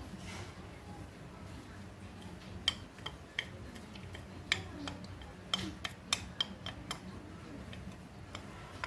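Light clicks and clinks of kitchen utensils against dishes as food ingredients are handled, scattered irregularly, most of them in the middle of the stretch.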